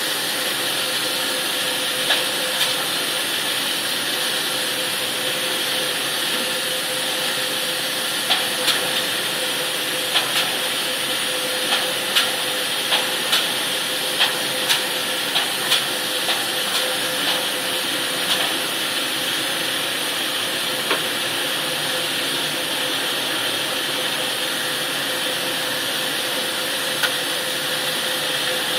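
Steady hiss and machine hum around a tilting sorghum cooker as it is tipped to pour the cooked grain, with a string of sharp knocks, about one a second, through the middle stretch.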